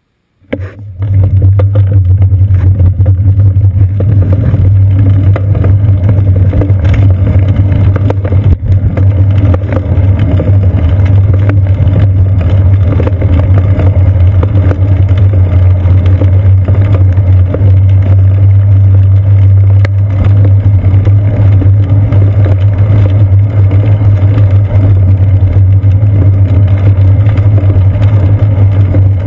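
Steady, loud low rumble of road vibration and wind picked up by a seat-post-mounted GoPro Hero 2 in its housing as the bicycle rolls along; it cuts in abruptly about half a second in.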